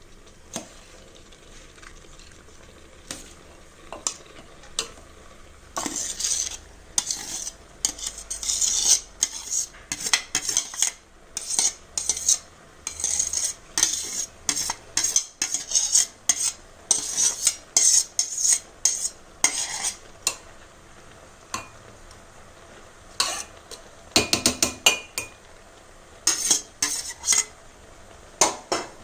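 Metal spoon scraping and knocking against a cooking pot as partly cooked basmati rice is spooned over the marinated chicken to layer a dum biryani. The strokes come in quick runs, start about six seconds in, pause briefly, then resume near the end.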